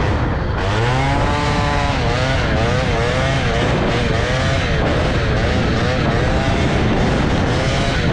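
Two-stroke 50cc moped engine with a Polini cylinder kit running hard under way. Its pitch climbs about half a second in, then rises and falls in quick waves.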